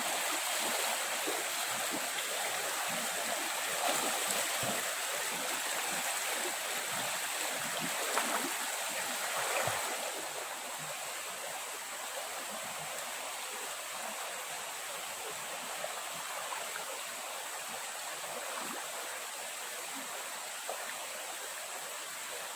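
Stream water running steadily, with a thin, steady high-pitched whine above it; a little quieter after about ten seconds.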